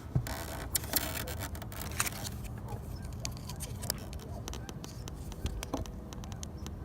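Hands handling a plastic turn-signal bulb socket and small parts: rustling in the first couple of seconds, then scattered small sharp clicks and taps, over a steady low hum.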